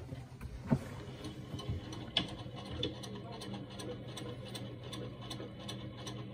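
Electric sewing machine stitching across the folded pleats of a cut vacuum-bag mask panel: a steady motor hum with regular mechanical ticking, and a couple of sharp clicks in the first two seconds.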